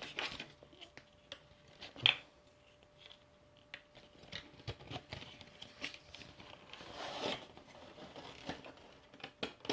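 Small plastic helmet pieces being handled and worked into a plastic standings display: scattered light clicks and rubbing, with one sharper click about two seconds in.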